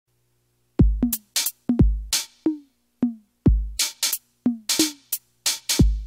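Music: a drum-machine beat on its own, starting about a second in. Deep kick drums with long falling low tails alternate with sharper snare or clap and hi-hat hits.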